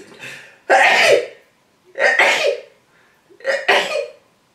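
A woman coughing three times behind her hand, each cough a short, loud burst with a pause between.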